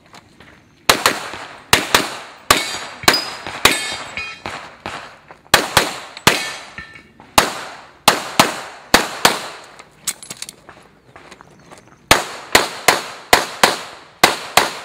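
Pistol shots fired in quick pairs and fast strings, each a sharp crack with a short echo, with a couple of pauses of a second or two between groups.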